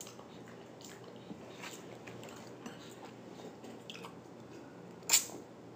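Two people eating a snow crab seafood boil: quiet chewing and small mouth and shell clicks, with one short, loud click about five seconds in.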